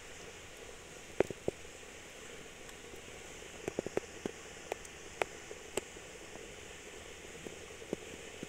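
Rice boiling hard in a pot on a wood-fired chulha: a steady hiss with irregular sharp pops, the loudest about a second in and several close together around the middle.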